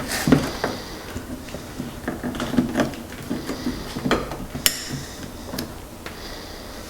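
Irregular light knocks, clicks and clatter of parts and tools being handled inside an opened car door, with one sharper click about two thirds of the way through.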